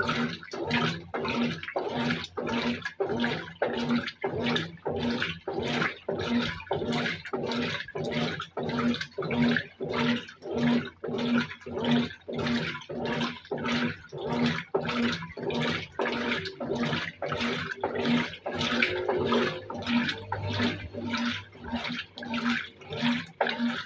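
Brastemp 17 kg top-load washing machine agitating a load of clothes in water, with a steady rhythm of about two swishing strokes a second, each carrying a short motor hum as the wash action turns.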